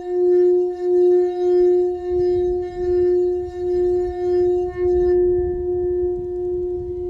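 Frosted crystal singing bowl rimmed with a wand: a steady low tone that swells and dips about one and a half times a second, with a faint rubbing buzz from the wand. About five seconds in the wand comes off the rim, the rubbing stops, and the bowl rings on alone.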